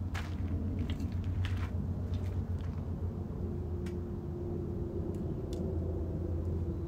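A steady low rumble, with a few light clicks and scuffs of footsteps on gravel and a compound bow being picked up and handled. A faint steady hum joins about three seconds in.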